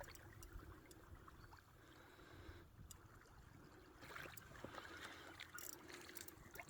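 Near silence: faint trickling and lapping of shallow water, with a few light ticks in the second half.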